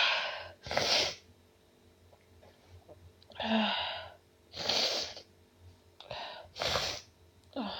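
A woman sneezing over and over: a string of short, noisy sneezes, with a pause of about two seconds after the first and the rest coming close together.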